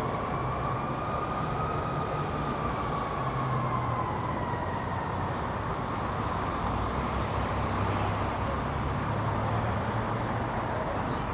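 Steady city street traffic noise with a low engine rumble. A faint tone glides slowly up and then down over the first half, like a distant siren.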